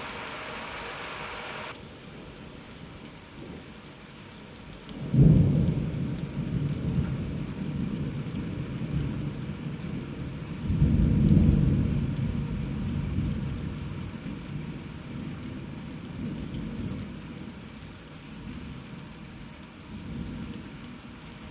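Thunderstorm: steady rain hiss, heavier for the first couple of seconds until it cuts abruptly to a softer patter. About five seconds in a sudden thunderclap breaks into a deep rumble that swells again around eleven seconds and then rolls away, with a fainter roll near the end.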